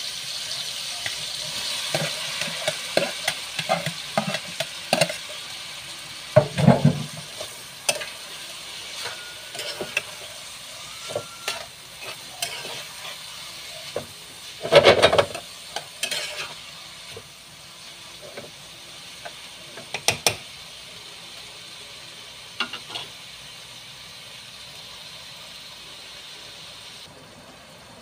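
Spatula scraping and clacking against a frying pan as sliced bitter gourd is stirred into sautéed tomatoes, over a steady sizzle. There are two louder clatters, about a third of the way in and around the middle.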